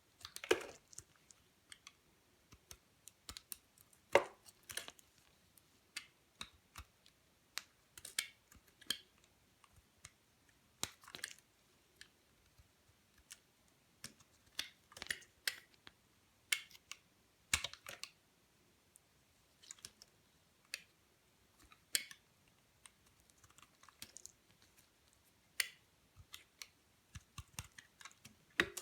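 Knife cutting a bar of dry soap: irregular crisp cracks and crunches as pieces snap off, one every second or so, the loudest about four seconds in.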